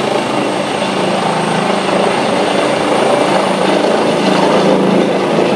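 Helicopter running, cutting in suddenly as a loud, steady rush of rotor and engine noise with a thin high whine above it.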